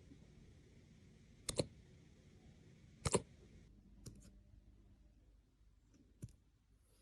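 Puppy hiccupping: a few short, sharp hics more than a second apart, the loudest about a second and a half and three seconds in.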